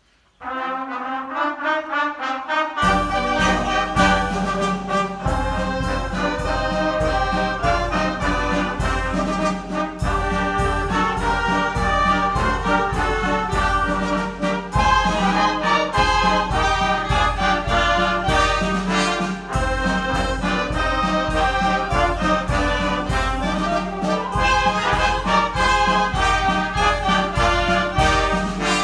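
A youth wind band of clarinets, saxophones and brass playing a march. It starts quietly about half a second in, and the full band comes in with a steady drum beat about three seconds in.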